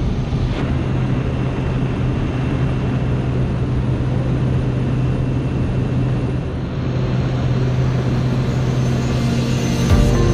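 Steady drone of a small high-wing plane's engine, heard from inside the cabin, with a constant low hum.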